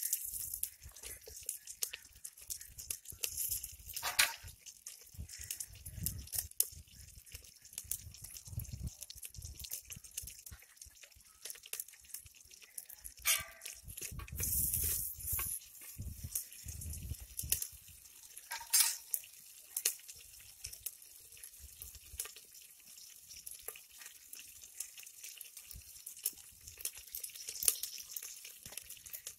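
Small onions frying in oil in a clay pot, with scattered crackling and sizzling throughout. A metal spoon stirs them and clinks against the pot three times, about 4, 13 and 19 seconds in, with some low rumbles around the middle.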